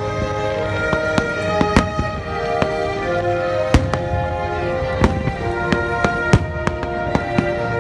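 Fireworks going off in irregular sharp cracks and pops, the loudest about four and six and a half seconds in, over music with held melodic notes.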